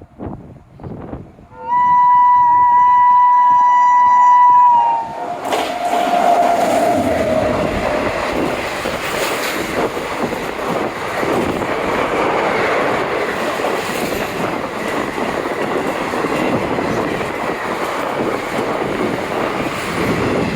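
WAP-7 electric locomotive sounds its shrill horn once, a loud steady note held for about three seconds. As it stops, a lower tone slides down and fades, and the train's running noise takes over: a steady, loud rumble and clatter of wheels on rails.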